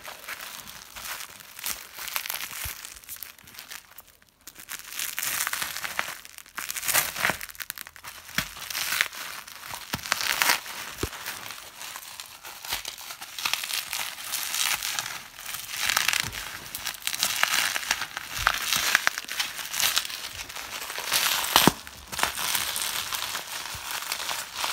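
Crinkled plastic packaging crinkling and rustling in irregular waves as it is handled by hand.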